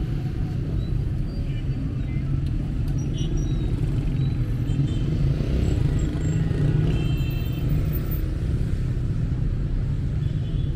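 Steady rumble of busy city street traffic: cars and motorbikes running and passing.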